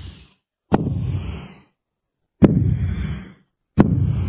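Low rumbling ambience of a crowded hall in three short bursts, each opening with a sharp knock, cutting out to complete silence in between.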